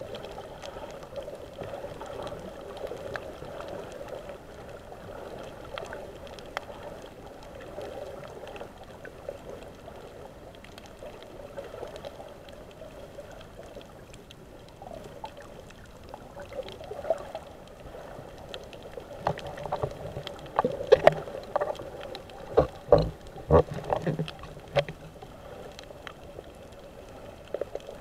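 Muffled underwater ambience on a scuba dive: a steady, dull watery hiss. Between about 19 and 25 seconds in, a cluster of sharp clicks and knocks stands out above it.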